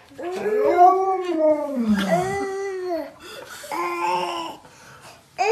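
Drawn-out wailing cries that rise and fall in pitch: a long run of overlapping wails over the first three seconds, then a shorter wail about four seconds in.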